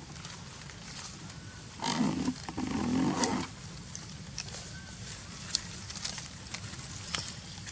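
An animal giving two low, rough calls in quick succession about two seconds in, over faint background noise and scattered light clicks.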